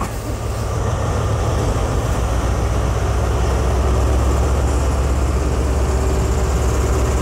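Class 43 HST power car's diesel engine pulling the train away, a deep steady drone that grows louder over the first few seconds and then holds.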